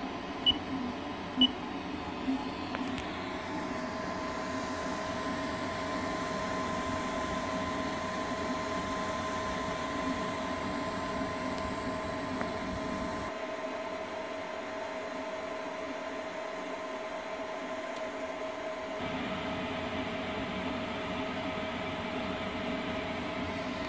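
Self-built 3D printer running a print at 200% speed: a steady whine from its stepper motors over fan hum. The touchscreen beeps twice near the start.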